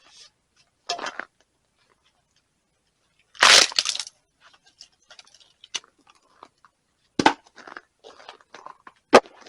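Axe blows on wood, a few seconds apart, each a sharp crack. About three and a half seconds in comes a louder, longer crunch as the wood splits.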